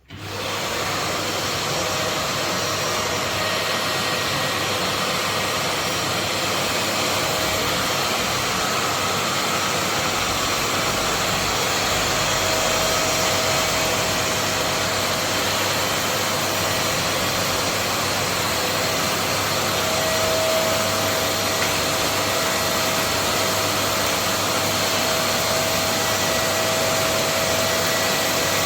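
Bosch Professional GAS 12-25 PL wet and dry vacuum's 1250 W motor switching on and running steadily with a constant whooshing noise.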